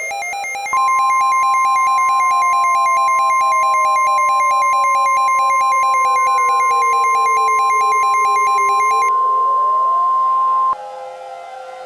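Emergency Alert System attention sounds for a tornado emergency: a loud, steady single-pitch alert tone starting under a second in, layered over a fast-pulsing electronic pattern and a slow siren-like sweep that rises, falls and rises again. The pulsing stops about nine seconds in and the steady tone cuts off near the end, leaving the quieter sweep.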